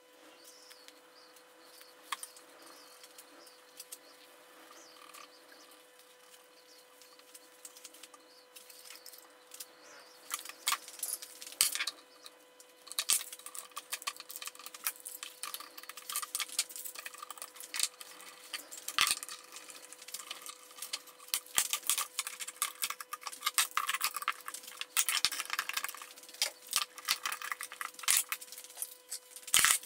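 Faint rustling of handled wood panels and plastic wrap, then, about ten seconds in, a long run of clicks, clinks and rattles as one-handed Irwin Quick-Grip bar clamps are set on a glue-up and squeezed tight with their trigger handles.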